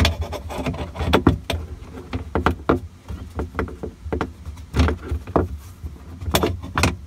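Irregular clicks, knocks and rattles of a ratchet, bolt and mounting hardware being worked inside a plastic kayak hull, over a low hollow rumble of the hull being handled.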